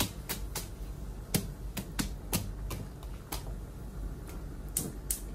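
Covered pot of rice steaming on a low gas flame, giving irregular sharp ticks and crackles, roughly two or three a second, over a steady low hum.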